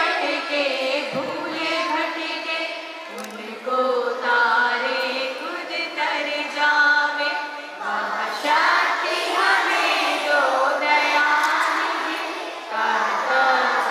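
A group of young children singing together in unison, holding each note for about half a second to a second in short phrases.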